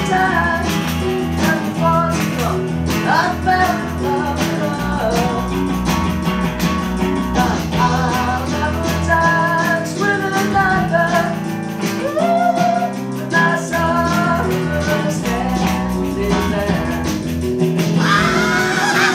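Tagima electric guitar played along with rock music that has drums, bass and singing.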